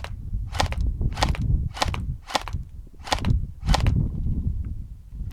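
Airsoft M4 electric rifle (AEG) fired semi-automatic: seven sharp single shots about 0.6 s apart, then the firing stops about four seconds in.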